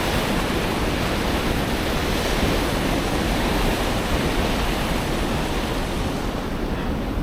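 Steady rushing of a fast, flood-high stream.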